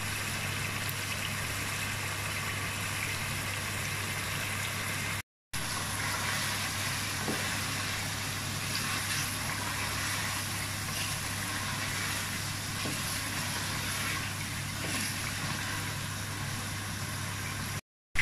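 Meat curry sizzling and simmering in a metal pot over a steady low hum, with a wooden spoon stirring and giving a few light knocks. The sound drops out for a moment twice, about five seconds in and just before the end.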